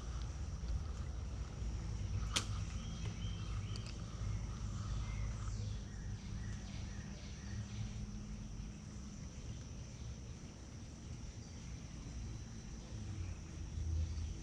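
Outdoor creekside ambience: a steady low rumble under a thin, constant high-pitched hum, with a single sharp click about two seconds in.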